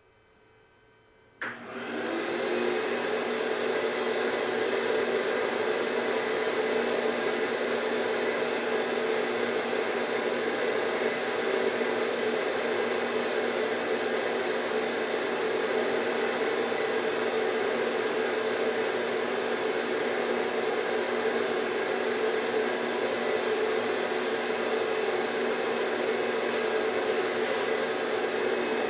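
A woodshop power tool's electric motor switches on about a second and a half in, spins up with a rising whine and then runs steadily at constant speed.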